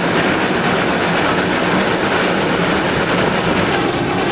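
Steam locomotive running along the track, heard from the front of the engine: a steady loud running noise with a faint regular beat about twice a second.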